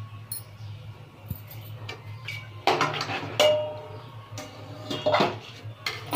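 Metal slotted spoon scraping and knocking against a metal cooking pot as cooked chana is scooped out into a bowl. There are clusters of clinks with brief metallic ringing about three seconds in and again about five seconds in, over a steady low hum.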